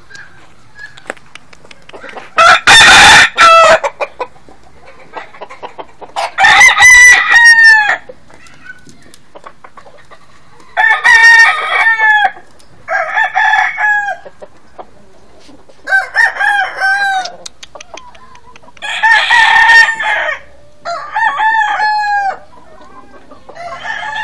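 Gamecock roosters crowing again and again, with a crow every few seconds and about six crows in all, each with a falling pitch toward the end.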